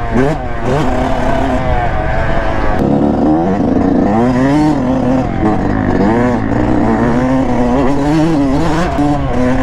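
Yamaha YZ125 two-stroke dirt bike engine ridden hard along a dirt trail. The revs rise and fall over and over as the throttle is worked.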